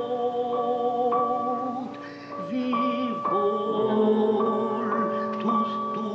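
A man singing long held notes with vibrato, accompanied by a piano, with a short break between phrases about two seconds in.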